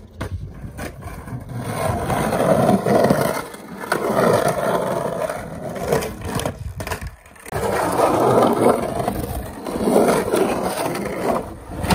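Skateboard wheels rolling on the concrete of an empty swimming-pool bowl. The rumble swells and fades about four times as the rider carves across the bottom and up the walls.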